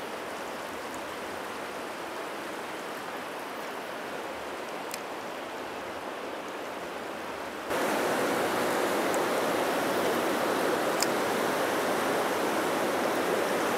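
River rapids rushing over rocks and cobbles, a steady rush of water that becomes louder about eight seconds in.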